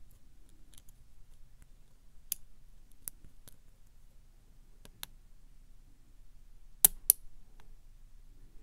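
Scattered sharp metallic clicks of a hook pick working the pins of a brass K1 Locks 'Unkle Billy' euro-profile cylinder under tension, single-pin picking. The loudest is a close pair of clicks about seven seconds in.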